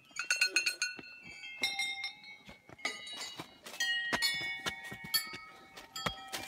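Small brass bells hung along a railing, rung one after another in quick, uneven succession, each strike leaving a clear metallic ring that overlaps the next.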